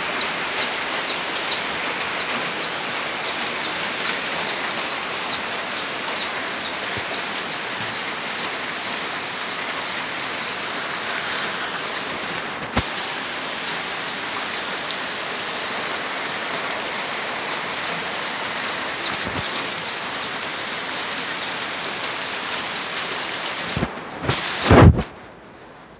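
Heavy rain pouring steadily onto floodwater, a dense even hiss. Near the end come a few loud bumps, and then the rain sound drops away sharply.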